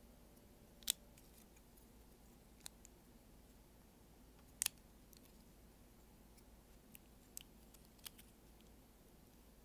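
A handful of sharp, isolated plastic clicks from a Yolopark model kit's parts being worked and snapped together during assembly, the loudest about a second in and a quick double click near the middle, over faint room tone.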